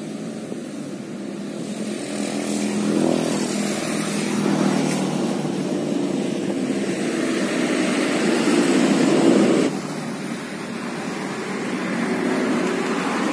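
Road traffic passing close by: a truck and other vehicles, engine and tyre noise swelling as they go past. The noise drops away suddenly about two-thirds of the way through, then another vehicle builds up.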